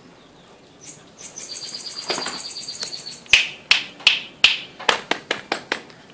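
A person whistles one high, steady note to call puppies, then snaps their fingers in a quick series of about ten sharp snaps, roughly three a second.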